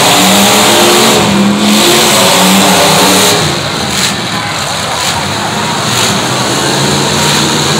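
Engines of several demolition-derby pickup trucks revving hard in the pit, loudest for the first three seconds and then a little quieter, over a dense, steady noise.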